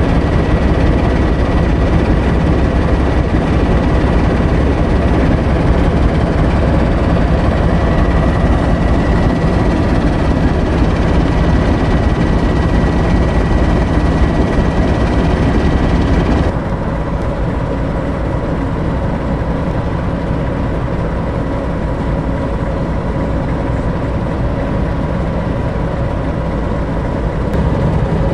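British Rail Class 08 diesel shunter's English Electric six-cylinder engine idling with a steady deep rumble and a thin high whine. The sound drops a step in level about two-thirds through.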